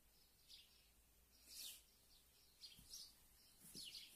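Faint, high bird chirps: short falling notes, a few each second, with the clearest about a third of the way in.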